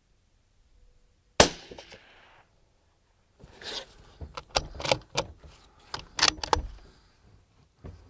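A single suppressed rifle shot from a scoped bolt-action .223 (Mossberg MVP) about a second and a half in, with a short decaying tail. From about three and a half seconds a run of metallic clicks and clacks follows as the bolt is worked to eject the spent case and chamber the next round.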